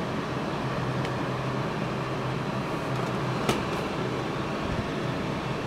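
Electric cooling fan blowing steadily, a constant airy whoosh over a low hum. A single light click about three and a half seconds in.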